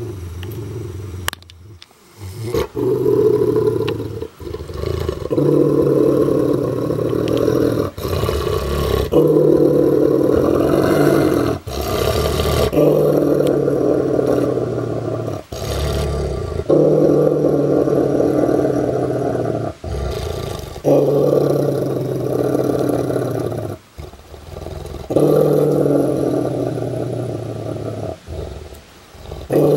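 A Rottweiler growling deep and low in a series of long growls, each a few seconds, with short breaks for breath between them. It is a warning growl from a dog guarding a rabbit leg, its kill.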